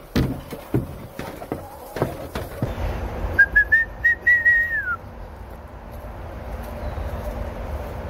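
A few sharp knocks, then a short whistled phrase: quick notes stepping upward, ending in one held note that drops away.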